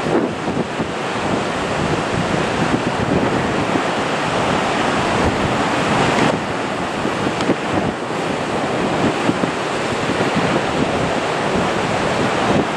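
Wind buffeting the microphone: a loud, gusty rushing noise with no clear tone in it.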